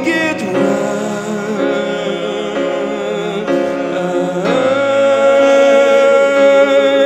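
Slow worship song: a male voice sings over grand piano accompaniment, holding one long note through the second half.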